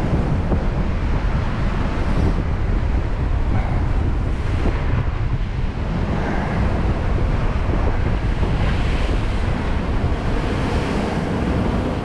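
Strong gale-force wind blowing on the microphone over the rush of breaking sea waves, with the wash of the surf swelling louder in the second half.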